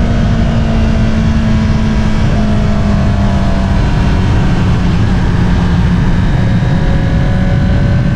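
2022 Honda CBR650R's inline-four engine running through an Akrapovič single-outlet exhaust while cruising at fairly steady revs, the pitch easing down slightly over the first few seconds and then holding.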